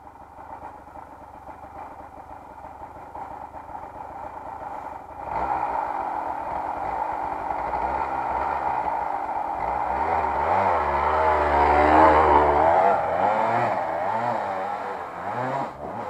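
Two-stroke Kawasaki dirt bike engine running, revving up and down. It gets clearly louder about five seconds in, and the revs rise and fall with the throttle before easing off near the end.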